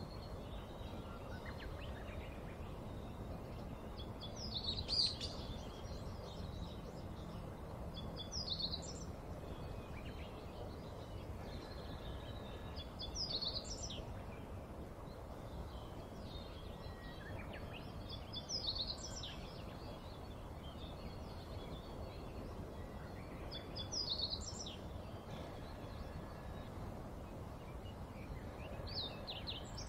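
A bird giving a short, high call about every five seconds, over steady outdoor background noise.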